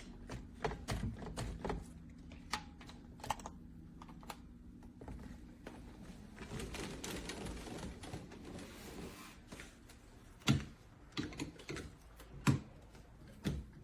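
Irregular light plastic clicks and knocks from a retractable mesh gate being handled, with a rustling stretch in the middle and several sharper knocks near the end.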